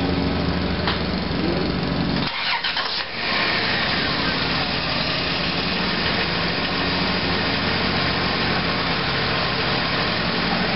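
Van engine running steadily, its vacuum leaks freshly sealed while the engine computer relearns its fuel delivery. The low part of the sound briefly drops out a little over two seconds in, then comes back.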